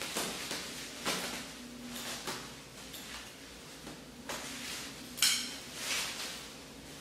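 Bubble wrap crinkling and rustling in short bursts as it is handled, cut and pulled off a wrapped figure, with a sharp rasp about five seconds in.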